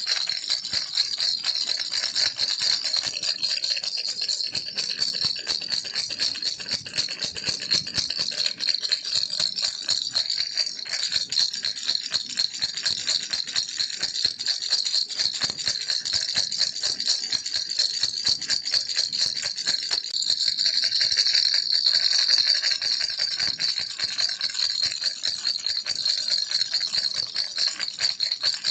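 Baby rattle shaken without pause, a fast, dense, steady rattling of small pieces inside it, swelling slightly past the middle.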